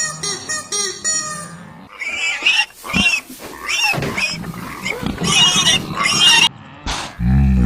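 Animal calls: a run of short, shrill, pitch-bending squeals from about two seconds in, then a loud, low call near the end.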